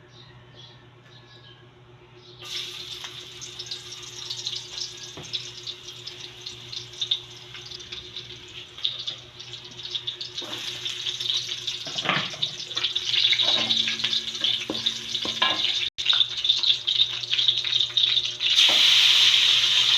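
Food frying in hot oil in a pan, a dense crackling sizzle. It is faint at first, gets louder about two seconds in, and is loudest near the end.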